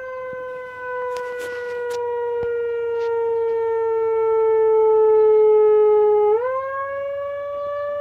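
Whelen 295SSA1 electronic siren sounding its "mechanical" tone, an imitation of an old wind-up air-raid or shark-alarm siren, through a muffled siren speaker. The single wailing tone slowly sags in pitch as if winding down. About six seconds in it quickly climbs back up and then holds.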